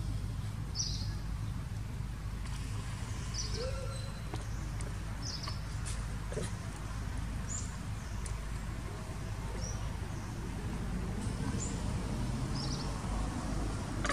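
Short, high bird chirps repeating about once a second over a steady low background rumble.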